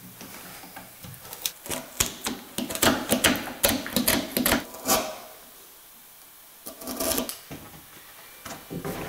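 Irregular clicks and light knocks of hand work on wooden stair parts. They run for about three seconds starting a second and a half in, stop, then come back briefly near the end.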